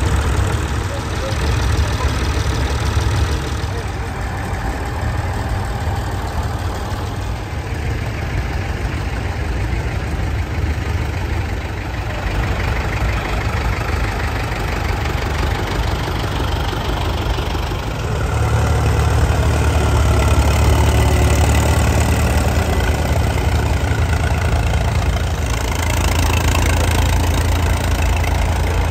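Vintage tractor engines running steadily at low revs as the tractors drive slowly past, one after another. The engine sound grows louder about two thirds of the way in.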